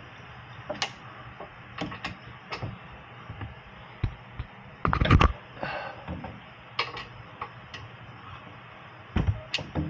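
Scattered metallic clicks and knocks of hand tools: an 18 mm socket or wrench being fitted to the rear brake bolts and the bolts broken loose by hand. The loudest knocks come about five seconds in and again near the end.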